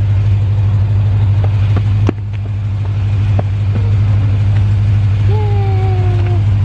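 A car engine idling, a steady low hum. A few light clicks fall early on, and a short hummed voice sounds near the end.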